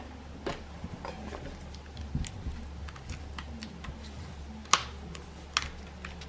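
Scattered light clicks and taps of small parts and tools being handled during an iPad repair, with two sharper clicks near the end, over a steady low hum.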